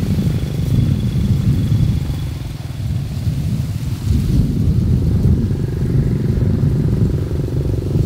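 Wind buffeting the microphone: a loud, uneven low rumble that swells and dips in gusts, with a faint steady low hum underneath in the second half.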